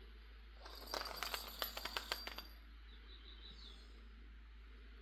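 Small cat toy ball rattling and jingling with a quick run of sharp clicks and a high ring, lasting about two seconds from just under a second in, as it is knocked about on the rug.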